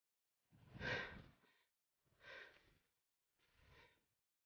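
A person breathing out heavily three times, about a second and a half apart, each breath fainter than the last.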